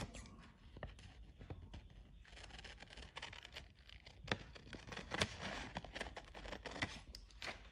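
Scissors cutting coloured paper: a run of small, irregular snips with paper rustling.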